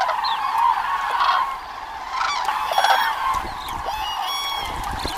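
A flock of common cranes calling, many loud trumpeting calls overlapping one another.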